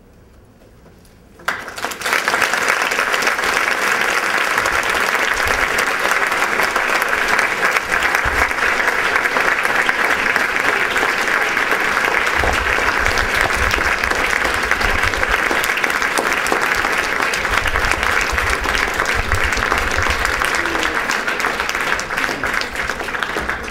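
Audience applauding at the end of a lecture: a dense, steady clapping that starts suddenly about a second and a half in and keeps going.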